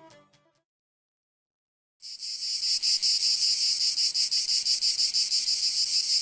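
Music fades out at the start, then after a short silence, about two seconds in, a loud chorus of insects starts abruptly: a high-pitched, steady chirring with rapid, even pulsing.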